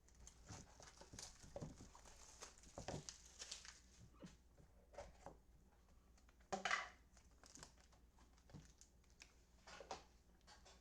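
Faint rustling and light clicking of baseball cards and pack wrappers being handled during a hobby box break, with one louder crinkle a little past halfway.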